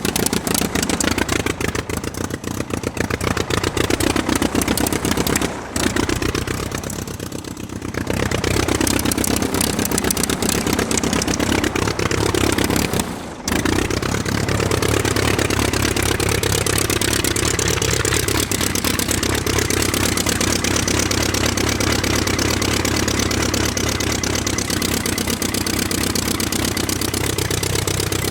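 A piston engine running and revving, its pitch rising and falling, with short breaks about six and thirteen seconds in.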